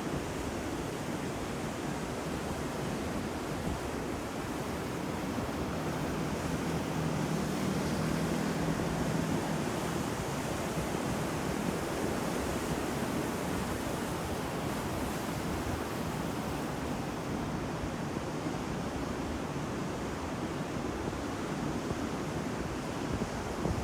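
Ocean surf: waves breaking and washing in a continuous, steady rush that swells a little about a third of the way in.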